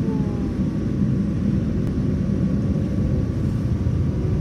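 Steady low rumble in the cabin of a Boeing 787-9 airliner moving on the ground for takeoff.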